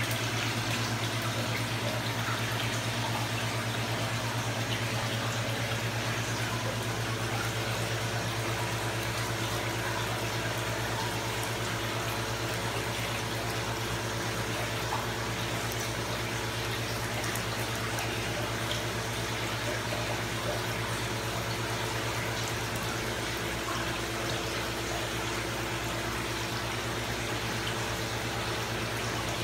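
Steady splashing and bubbling of water pouring into a large fish pond, over a low steady hum.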